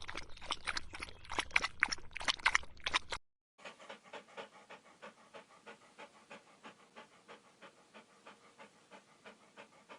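A dog panting in quick, regular breaths: a louder, faster stretch for about three seconds, a brief break, then steady, quieter panting at about three breaths a second.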